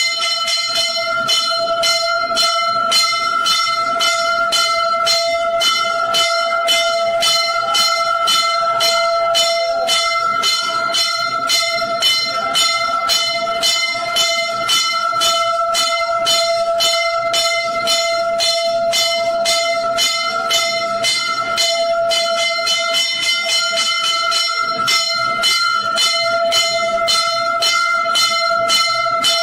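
Temple bells ringing fast and without a break during aarti: regular strikes, about three or four a second, over a steady ringing tone.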